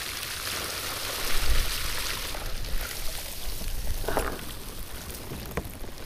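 Water streaming and dripping off a cast net full of baitfish held up out of the water, with a brief low rumble about a second and a half in.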